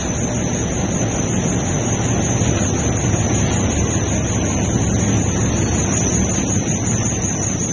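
Diaper production-line machinery running: a steady, loud mechanical noise with a constant high hiss above it.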